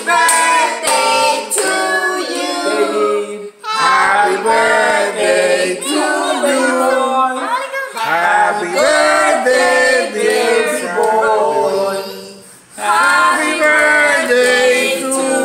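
A small group of voices, mostly women's, singing a song together in four phrases with short breaks between them.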